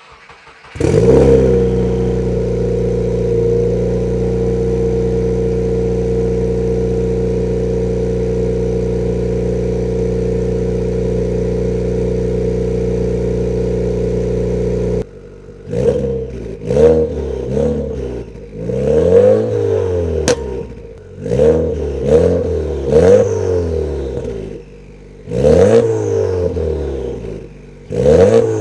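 2017 Subaru WRX's turbocharged flat-four cold-started through a catless HKS carbon-titanium exhaust: it catches about a second in and holds a steady high cold idle. About halfway the idle drops and the engine is blipped in a string of quick revs, each rising and falling, with turbo flutter as the throttle shuts.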